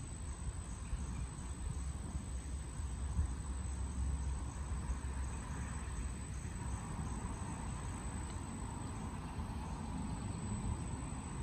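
Insects trilling steadily, a thin high continuous sound with faint regular pulses, over a constant low rumble.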